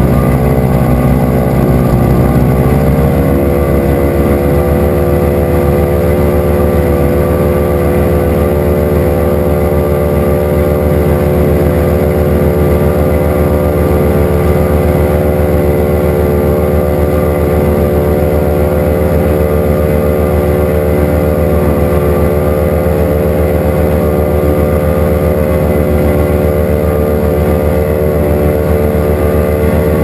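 The engine and pusher propeller of an HM-1000 Balerit ultralight running on the ground, loud and steady. It revs up a little about two to three seconds in, then holds an even pitch.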